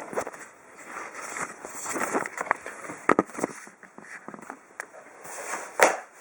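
Handling and opening a cardboard parcel: irregular rustling and scraping, with a few sharp knocks and clicks, the loudest near the end.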